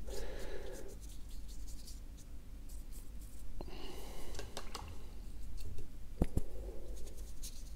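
A wet paintbrush swishing and scratching across drawing paper in a few short spells, with two soft knocks about six seconds in.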